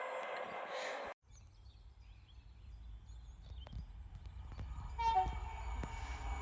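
Approaching train, its low rumble building steadily, with a short horn blast about five seconds in; small birds chirp in the quiet before it. The opening second is the noise of another train, cut off abruptly.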